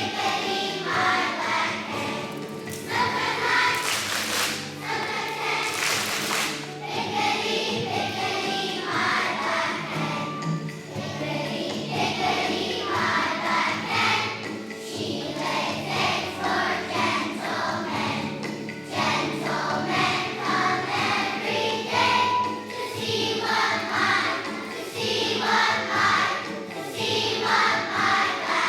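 A children's choir singing a song, with instrumental accompaniment.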